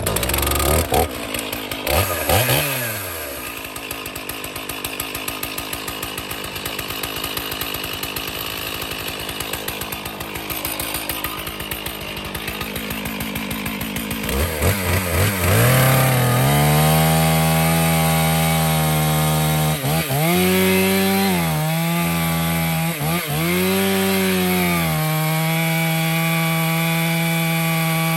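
Stihl chainsaw running, starting suddenly at a low, pulsing speed with a quick rev near the start. About halfway in it is opened up to full throttle and holds a high steady pitch, dipping briefly three times as it bogs in the cut of a tree-felling job.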